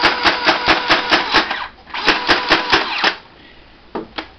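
Motorized Nerf Vulcan EBF-25 belt-fed blaster cycling its battery-powered firing mechanism: a rapid clacking, about five strokes a second over a motor whine, in two bursts. It is followed by two single clicks near the end.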